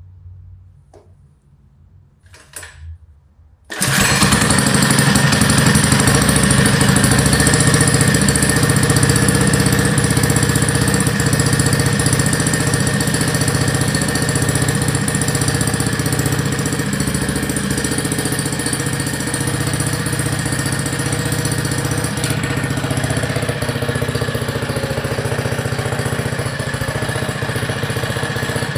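A few faint clicks, then a 79cc mini bike engine fitted with a Stage 1 kit starts suddenly about four seconds in and runs steadily, getting a little quieter about two-thirds of the way through.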